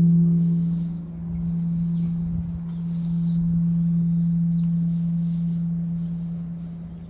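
The Emille Bell, the great bronze Sacred Bell of King Seongdeok, humming after a strike. A deep steady tone swells and fades in slow pulses, then dies away near the end. Faint bird chirps can be heard over it.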